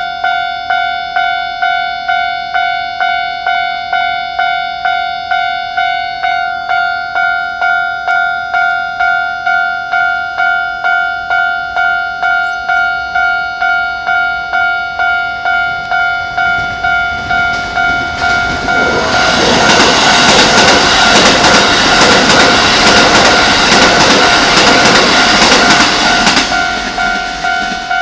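Japanese level-crossing warning bell ringing steadily at about two dings a second. Partway through, a Keikyu 1000 series electric train grows loud and passes the crossing with a heavy rumble and wheel clatter for several seconds, then cuts off sharply near the end while the bell keeps ringing.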